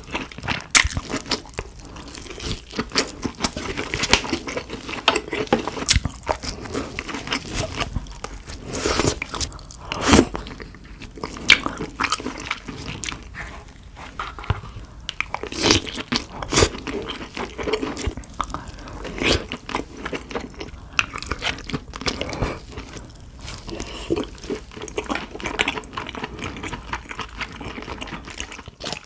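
Close-miked eating of king crab: irregular crunching and cracking with chewing, many sharp cracks in quick succession.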